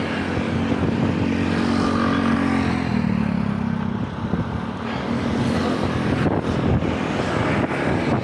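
A motor vehicle's engine runs close by, with a steady hum that shifts in pitch a couple of times, over road and wind noise.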